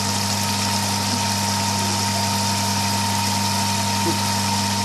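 Curry sauce bubbling at a rolling boil in an open pan, over a steady low mechanical hum.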